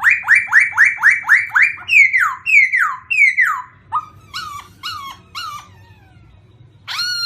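A songbird singing a quick run of clear whistled notes, each sliding downward, which slows and then turns to shorter, lower notes. After a short pause near the end comes one longer, nasal call.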